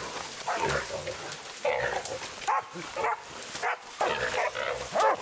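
Pig-hunting dogs barking repeatedly at a wild boar they have bailed, with the boar's rough squeals and grunts mixed in.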